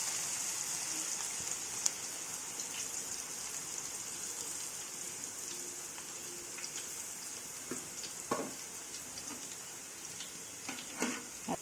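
Gram-flour (besan) boondi batter drops frying in hot oil: a steady sizzling hiss that slowly eases off as the drops cook. One sharp click about two seconds in, and a few light knocks near the end.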